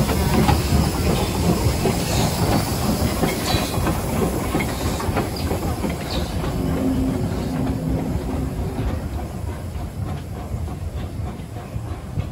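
Peckett 0-4-0 saddle tank steam locomotive moving off along the track with a coach, wheels clicking over the rail joints and steam hissing. The sound fades steadily as the train draws away.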